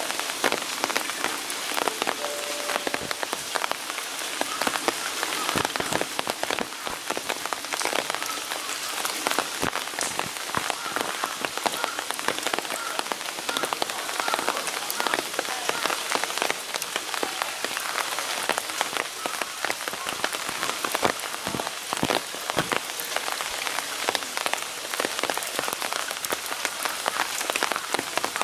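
Steady rain falling, with a dense, even spatter of drops striking hard surfaces close by.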